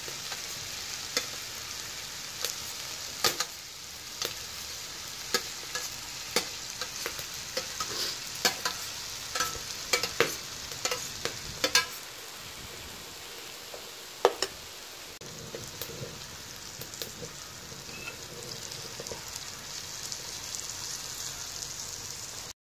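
Boiled fusilli pasta sizzling in a hot frying pan, a steady high hiss broken by scattered sharp clicks and knocks of a utensil against the pan, thickest in the first half with one louder knock around the middle. The sound cuts off abruptly just before the end.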